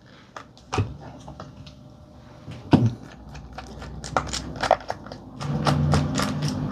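Handling clicks and knocks from a Radtel RT-950 handheld radio being taken apart: its battery pack comes off with a few sharp clicks, the loudest about three seconds in, then a precision screwdriver turns screws in the metal battery bay, giving a quick run of small clicks and scraping over the last two seconds or so.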